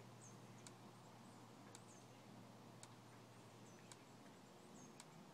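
Near silence: faint outdoor ambience with a soft tick about once a second and short, faint, high chirps.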